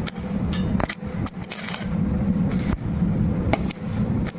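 Welding: a steady low machine rumble with irregular sharp crackles and short hissing bursts, one longer burst about one and a half seconds in.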